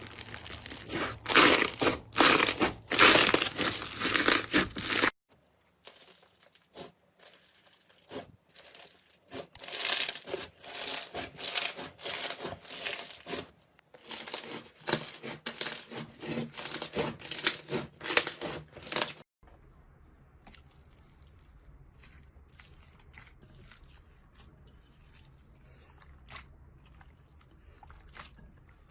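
Slime being squeezed and poked by hand, giving dense crackling and popping clicks in three stretches with abrupt cuts between them. The last third is much quieter, with only faint scattered clicks.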